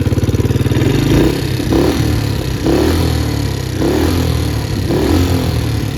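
2011 Can-Am DS90 ATV's small single-cylinder engine idling steadily for about a second, then revved in about five short throttle blips, each rising and falling back. The engine is running well again after a repair of its no-compression fault.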